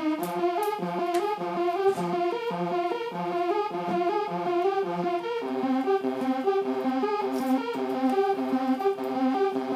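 SammichSID synthesiser with two 6582 Commodore 64 SID chips playing a demo patch through an amplifier: a fast repeating pattern of short electronic notes, the pattern shifting to a new set of notes about five seconds in.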